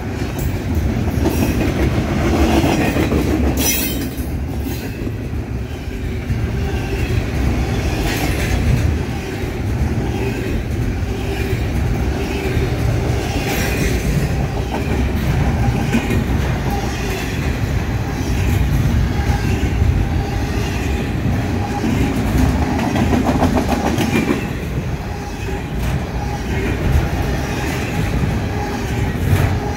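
Intermodal freight train's double-stack container cars rolling past at close range, a steady rumble with the wheels clacking over the rail joints.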